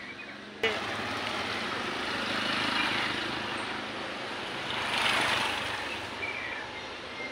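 Road traffic with motorcycles passing: a steady noisy engine-and-tyre hum that swells twice, about three and five seconds in.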